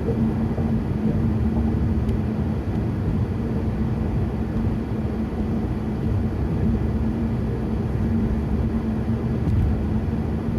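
Steady road and engine noise of a car being driven, heard from inside the cabin: an even low rumble with a constant low hum.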